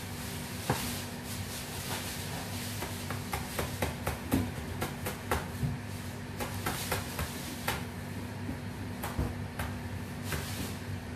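Chef's knife slicing siling labuyo (bird's eye chilies), the blade striking the cutting board in irregular sharp clicks, several a second at times, over a steady low hum.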